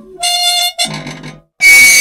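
An old machine that badly needs oil, squeaking loudly in three piercing squeals. The last and loudest comes near the end, just after a brief silence.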